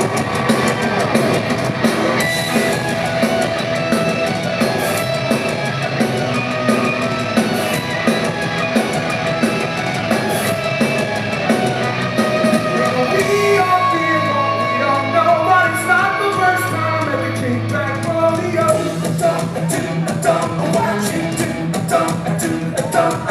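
Live rock band playing the opening of a new song, with drums keeping a steady beat under the guitars.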